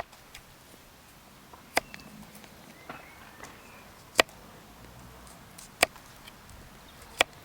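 Victorinox Solo single-blade pocket knife cutting into an apple: four short, sharp chops spaced a second or two apart.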